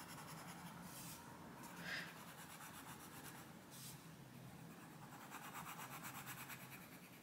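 Faint scratching of a Black Widow coloured pencil shading on paper.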